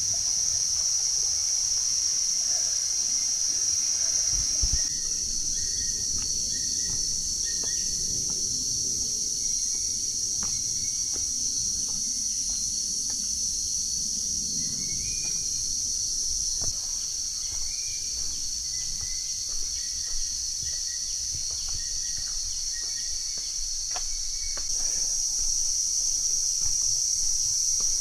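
Insect chorus in forest: a steady, high-pitched drone, with a few faint short chirps scattered through it.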